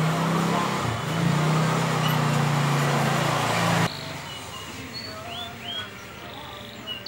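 A loud steady low hum with a hiss, machine-like, cuts off suddenly about four seconds in. After that a canary gives a few short rising chirps.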